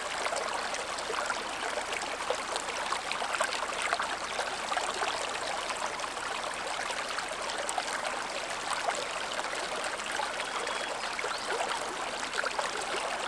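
Stream flowing, a steady babbling rush with many small splashes and trickles throughout.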